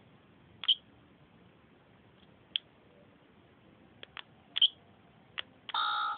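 A few sharp, scattered clicks. Then, near the end, the circuit-bent talking alarm clock sounds a loud electronic tone made of several steady pitches.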